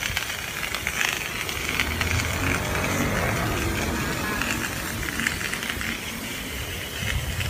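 Fire hose spraying a steady jet of water onto a smoking metal fire tray and wet pavement: a continuous hiss.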